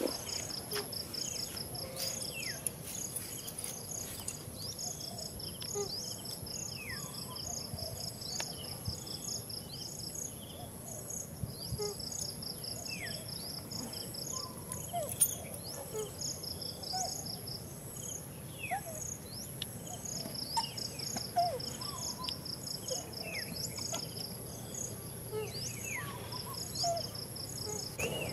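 Outdoor insects chirping in rapid pulsed trains that stop and start every few seconds, over a steady high-pitched insect hum. Scattered faint short falling chirps and a single sharp click about halfway through.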